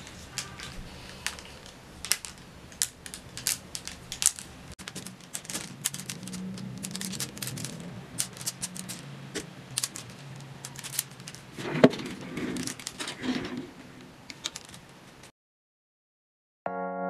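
Plastic clothes hangers clicking and clacking against each other as they are picked up and sorted by hand, a long run of sharp irregular clicks. The clicks stop about 15 seconds in, and soft piano music begins near the end.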